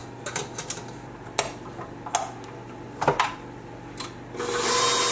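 Stainless steel mixing bowl and beater knocking and clicking into place on a KitchenAid stand mixer, several sharp metal knocks. About four seconds in, the mixer's motor starts and runs steadily with a whine.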